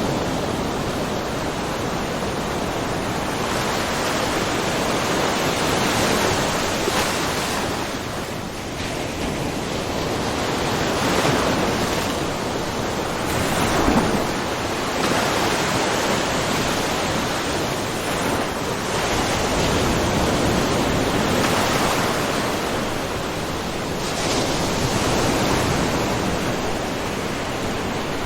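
Small ocean waves lapping and splashing on the shore of a mussel cove, a steady wash that swells and eases every few seconds, with one sharper splash about halfway through.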